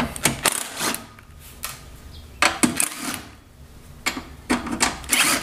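Cordless driver spinning out the 5/16 hex-head case screws from the welder's sheet-metal cabinet in three short bursts, with quieter pauses between them.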